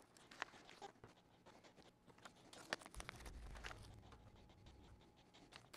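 Near silence with faint, scattered rustles and ticks as a paper seed packet is handled and seeds are tipped into a hand, one sharper tick nearly three seconds in.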